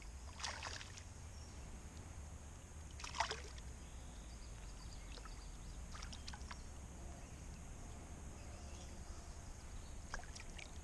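Hooked bass splashing at the water's surface beside a kayak as it is reeled in: two clearer splashes about half a second and three seconds in, then smaller splashes, over a low steady rumble.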